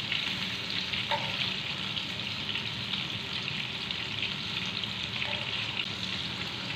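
Beef gola kababs sizzling steadily as they shallow-fry in a little oil in a nonstick pan on low flame. A couple of faint knocks come from the metal tongs turning them.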